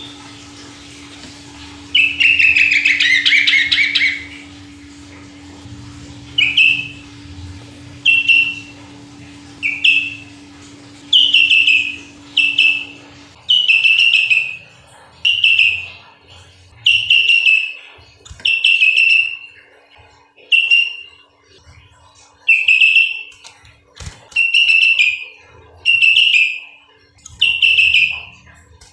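Sooty-headed bulbul (kutilang) singing: a longer run of song about two seconds in, then short chirpy phrases repeated about every second and a half.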